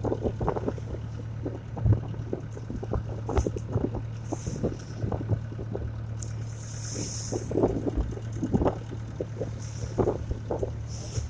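Motorboat engine running with a steady low hum, with wind buffeting the microphone and irregular thumps throughout.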